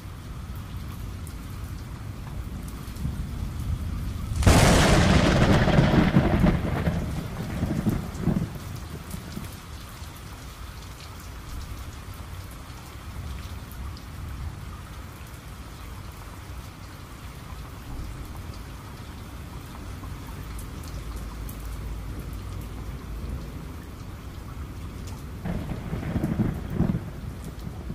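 Steady rain with a loud thunderclap about four and a half seconds in that rumbles away over a few seconds, and a second, shorter roll of thunder near the end.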